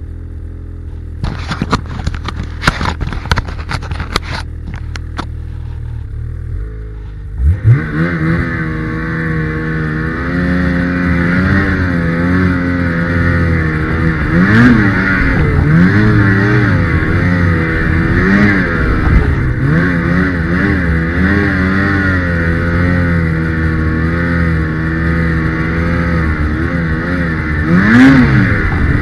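Ski-Doo Summit 850 snowmobile's two-stroke engine, at first a low hum under a run of sharp clicks and knocks. About seven seconds in it revs up, and it then runs on under changing throttle, its pitch rising and falling again and again.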